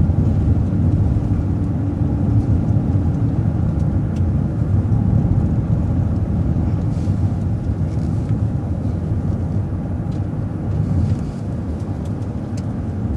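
City transit bus driving along, a steady low engine and road rumble with a few faint rattles.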